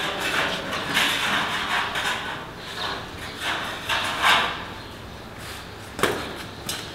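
Metal rods scraping and knocking against the inside of a gas-fired iron tandoor as baked naan is pried off its wall: several irregular scraping strokes, then a sharp clack about six seconds in.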